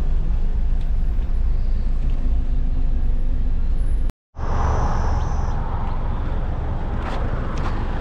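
Road noise of a car driving: a steady low rumble inside the cabin. It cuts out for a moment about four seconds in and comes back with more hiss.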